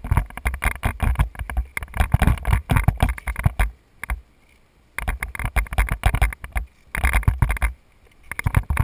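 Rapid gunfire from several shooters firing nearby, shots coming in fast strings with short breaks about four seconds in and again near eight seconds.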